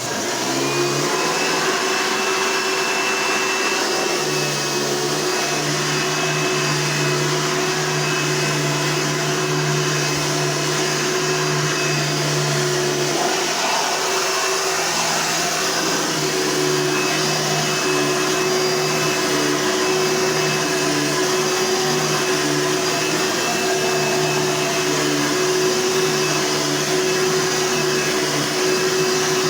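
Hoover vacuum cleaner switched on and running steadily at a loud, even pitch with a high motor whine; its low hum shifts about halfway through.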